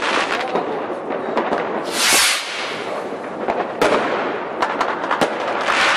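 Aerial fireworks bursting: a dense run of sharp pops and crackles, a loud hissing rush about two seconds in, and sharp bangs near four and five seconds.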